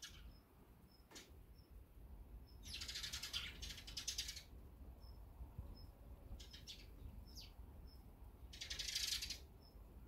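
Small birds at a garden seed feeder: faint high chirps repeating about twice a second and a short falling note, broken by two louder rasping calls, a long one a few seconds in and a shorter one near the end.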